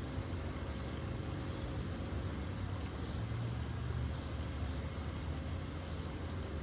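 Steady outdoor background noise: a low, even rumble with a faint hiss above it.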